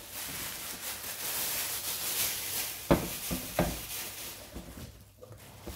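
Thin plastic bag rustling and crinkling as it is unwrapped from a plastic tub, with two sharp knocks about three seconds in.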